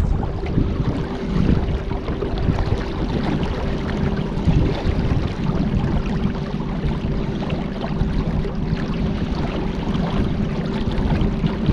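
A small boat moving on the river: water rushing and wind noise, with a faint steady hum throughout.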